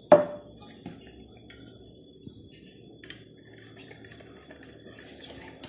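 Metal kitchenware clanks once, sharply, right at the start with a short ring, followed by faint clicks and soft scraping as ingredients are mixed by hand in a bowl.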